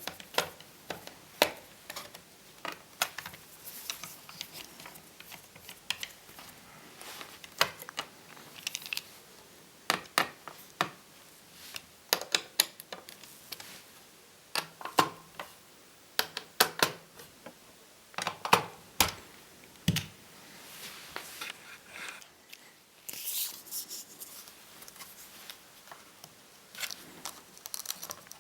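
Irregular small clicks, taps and scrapes of laptop parts and tools being handled, with a brief scratchy scrape a little after two-thirds of the way through.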